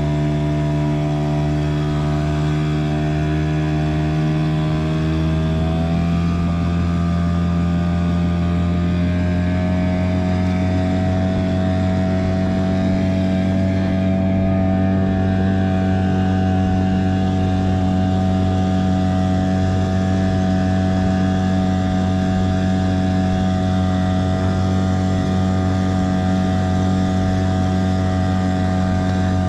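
Hangkai 6 hp two-stroke outboard motor running under way at full throttle, in the last hour of its break-in. Its pitch climbs as it speeds up between about four and ten seconds in, then holds steady.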